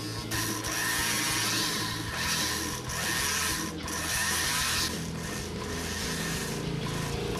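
Flex-shaft rotary tool running, spinning a small wheel blank while a pointed tool is held against it, scraping and turning the part like a lathe. The scraping breaks off briefly several times over a steady motor hum.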